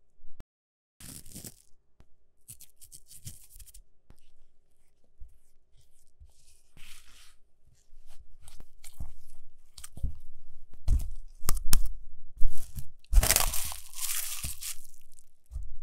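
Kitchen food-preparation handling sounds: irregular clicks, taps and crunchy scrapes that grow louder and busier in the second half, the loudest stretch a few seconds before the end.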